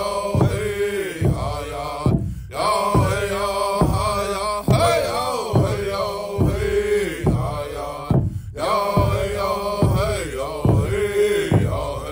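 Native American-style chant sung over a steady drum beat of about one and a half strokes a second, with two brief breaks in the song.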